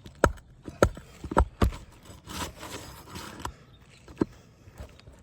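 Sharp knocks of hand tools working roofing nails loose from under asphalt shingles, four in quick succession, then two more spaced further apart.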